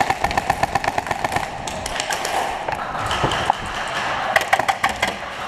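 Airsoft rifle firing rapid full-auto bursts, about a dozen shots a second: one burst in the first second and another, broken burst near the end.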